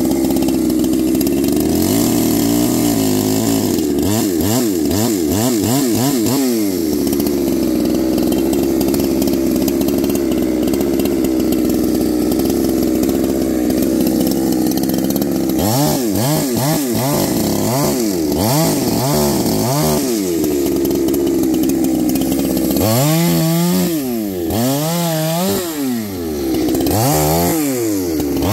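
Big-bore 372XP two-stroke chainsaw running hard while cutting small branches. It holds a steady high pitch through the middle, and in stretches near the start and from past halfway the engine note rises and falls about every half second.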